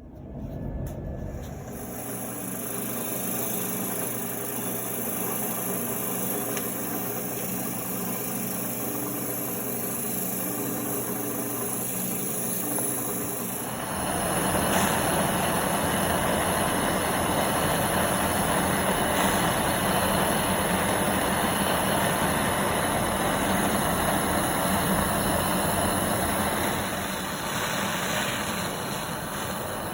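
A steady motor running, with steady low tones, turning louder and rougher from about halfway in.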